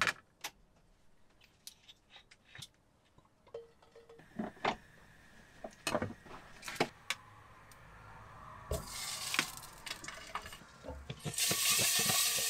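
Light clicks and knocks of pans and a food container being handled, then sausages sizzling in a hot frying pan, the sizzle growing much louder near the end.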